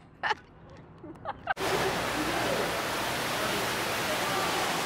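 Steady rush of falling water from an indoor waterfall into a rock-lined fish pond, coming in suddenly about a second and a half in, with faint voices under it. Before that, a short quiet stretch with a couple of brief voice sounds.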